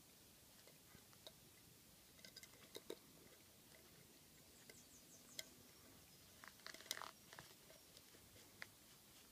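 A pademelon eating from an open tin of baked beans: faint, scattered clicks and scrapes of its mouth working at the tin, with a brief cluster of louder clicks about seven seconds in.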